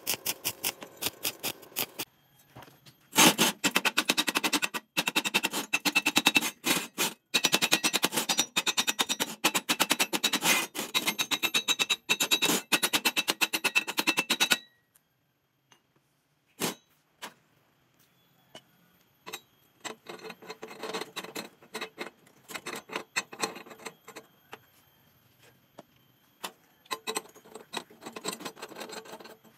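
Stick (shielded metal arc) welding: the electrode's arc crackling and sputtering on steel, first for about two seconds, then after a short break for about eleven more before it stops. After that come scattered lighter metal clicks and rattles as bolts are handled and screwed into the welded steel bracket.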